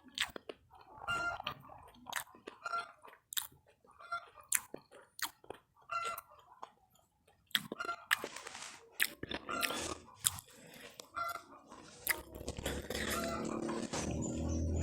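Close-up chewing and crunching of deep-fried battered snacks (Indonesian gorengan), with many short crisp bites and mouth sounds. Background music fades in near the end.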